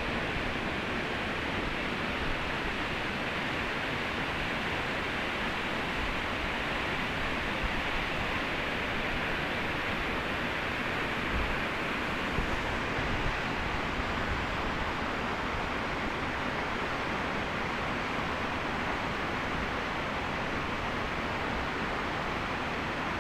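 Waterfall, its falling water making a steady, even rushing noise.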